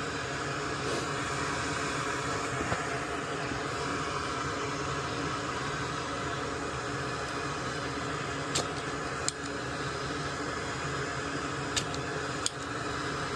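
Steady fan-like whir, with a few short sharp clicks in the second half, typical of small tools touching a circuit board during desoldering.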